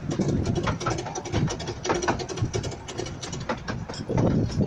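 Miniature railway carriages running along the track: a steady rumble of wheels on the rails with many irregular clicks and rattles.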